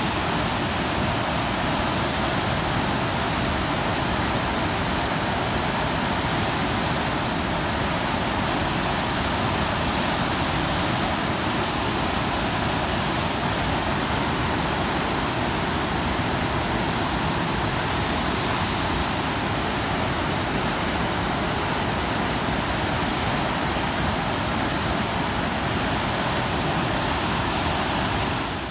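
Muddy high water rushing turbulently through an irrigation canal's sluice gates and down the channel, a loud, steady rush of water.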